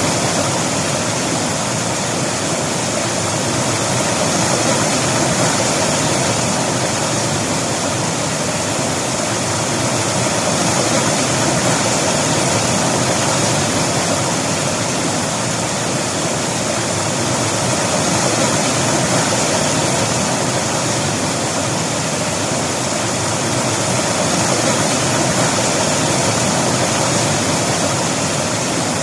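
River water rushing and flowing over rocks, a loud steady rush with a slow gentle swell and fall in loudness.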